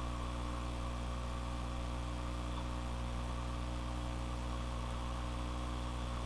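Steady electrical hum with a faint hiss underneath: the recording setup's background noise, with no other sound.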